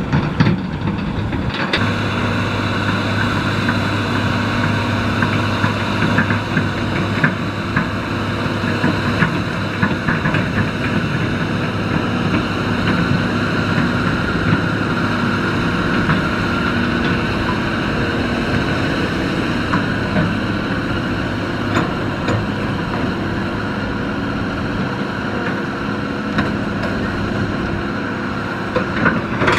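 Hitachi hydraulic excavator's diesel engine running steadily while digging, with a deeper hum coming in about two seconds in and scattered short knocks.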